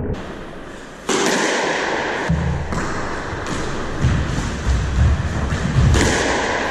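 Squash rally: the ball striking racquets and court walls in sharp, echoing cracks every second or so, with heavy thuds around them.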